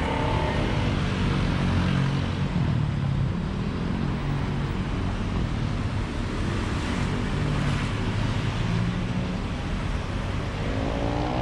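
Road traffic: vehicle engines running over a steady road noise. Near the end one engine revs up, rising in pitch.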